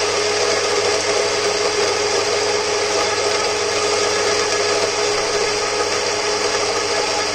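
DIY 3D-printed espresso grinder with Mazzer 64 mm flat burrs grinding coffee beans: its motor and burrs run steadily, with one constant hum under the grinding noise.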